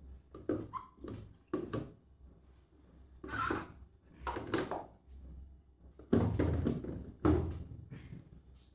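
Thin epoxy sheets being pushed down between EVE LF280 prismatic LiFePO4 cells in a battery box: a string of knocks and scrapes of sheet against cell cases, the loudest in the second half.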